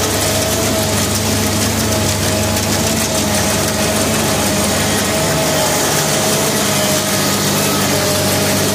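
A large engine running steadily, with a steady low hum and a faint wavering whine; the corn-chopping machinery is the likely source.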